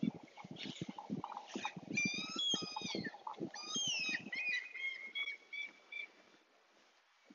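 A bird calling: a few high, harsh calls that fall in pitch, then a run of short notes, over a series of low thumps in the first half.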